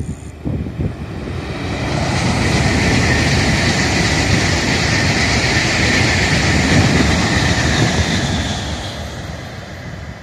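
N700 series Shinkansen bullet train passing at speed: its running noise swells over the first two seconds, holds steady, then fades toward the end as it goes away.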